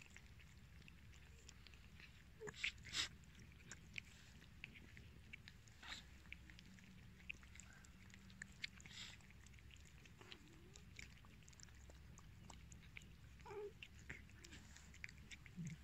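Cats eating chunks of wet cat food from a paper plate: faint, irregular chewing and lapping clicks, a few of them louder.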